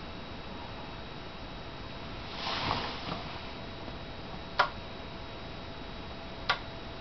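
Two sharp clicks about two seconds apart from the relays of a remotely switched power strip as its sockets switch, after a brief rustle; a faint steady hiss lies underneath.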